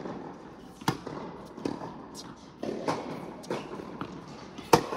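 Tennis rally in a large indoor tennis hall: sharp racket-on-ball hits and ball bounces on the hard court. A strong hit comes about a second in, with softer knocks between, and the loudest strike, a forehand close by, comes near the end.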